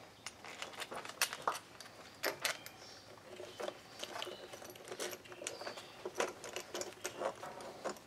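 Irregular small clicks, taps and rattles of small metal and plastic carburetor parts being handled and fitted back onto a leaf blower's carburetor.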